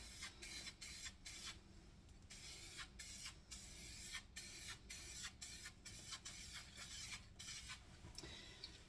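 Aerosol can of engine paint spraying in a series of short hissing spritzes, two or three a second, as a part is coated.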